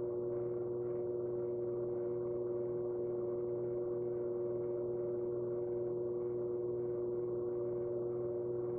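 Electric pottery wheel motor running at a steady speed, giving a constant hum of several held tones while clay is pulled up on the spinning wheel head.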